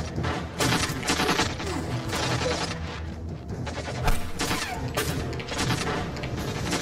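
Gunfire in a shootout: irregular bursts and single shots from automatic weapons.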